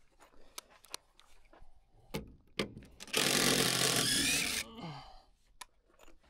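A DeWalt 20V cordless impact driver runs for about a second and a half, starting about three seconds in, backing out a screw, and winds down as it stops. Before it there are a few scattered knocks and clicks of tool and lumber handling.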